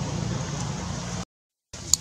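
Steady outdoor background rumble, mostly low. It drops out abruptly to silence a little past a second in, then two sharp clicks come near the end.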